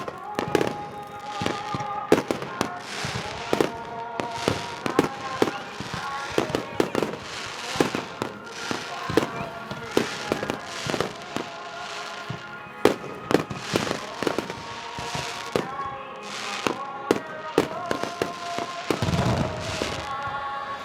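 Fireworks display: a rapid, continuous series of bangs and crackling bursts, with music playing underneath.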